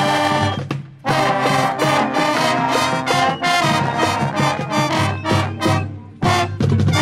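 Marching band brass section playing loud chords, with trumpets and trombones over drums; the sound breaks off briefly about a second in and again near the end.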